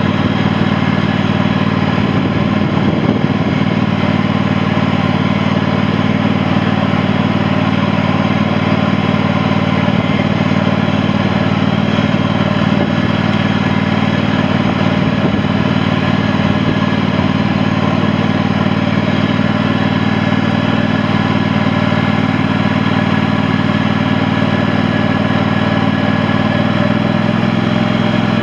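Sabre by John Deere lawn tractor's V-twin engine running steadily. Its note shifts slightly near the end.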